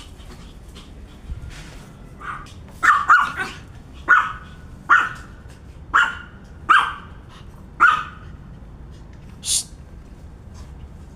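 Pomeranian puppy barking: about eight short barks, roughly a second apart, followed by one brief hiss.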